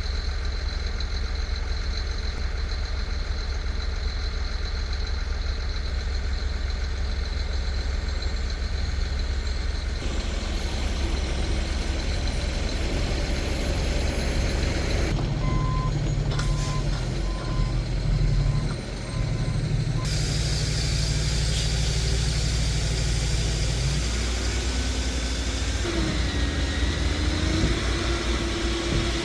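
Heavy diesel equipment running, a steady low engine drone that changes abruptly several times. About halfway through a reversing alarm beeps steadily for a few seconds.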